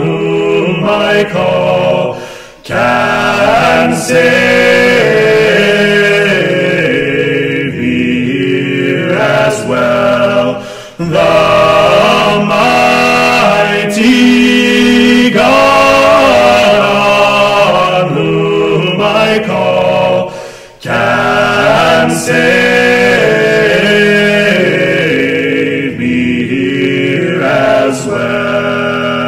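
Unaccompanied choir singing a hymn setting in close harmony. The sung phrases break off briefly three times, about every nine seconds.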